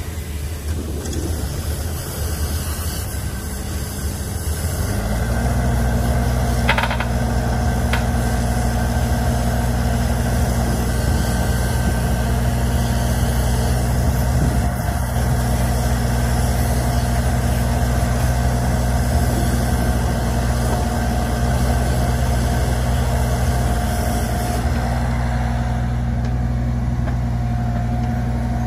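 Caterpillar 301.6 mini excavator's diesel engine running. About five seconds in it steps up to a higher, steady speed and holds there while the upper body swings round.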